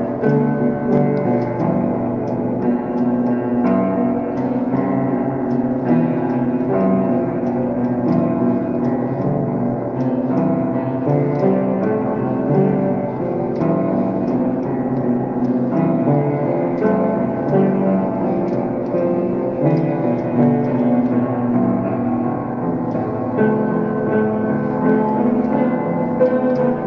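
Solo piano playing: a continuous flow of notes over held, ringing chords.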